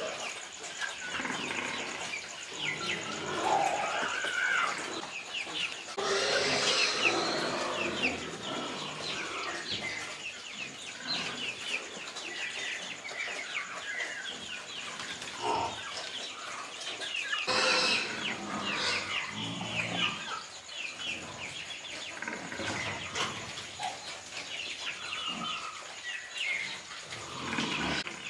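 Chickens clucking and chirping, many short calls overlapping, with the whole sound changing abruptly twice.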